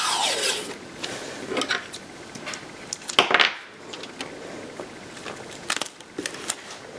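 Tape pulled off its roll with a screech that falls in pitch, then scissors cutting the strip of tape: a loud rasp about three seconds in and a few short snips near the end.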